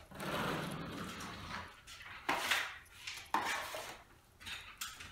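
A 14-inch drywall taping knife scraping joint compound against the edge of a 16-inch mud pan in about four strokes, loading the knife with mud for skim coating.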